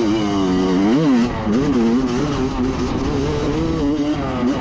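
Single-cylinder Honda CR250 two-stroke motocross bike engine revving under riding. Its pitch rises to a peak about a second in, drops, then holds fairly level with small rises and falls as the throttle is worked.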